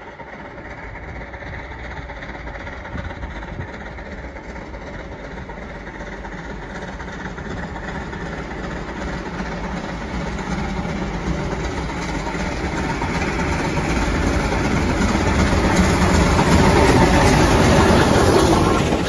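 Steam train approaching, its noise growing steadily louder until it is loudest near the end, then beginning to fade as it passes.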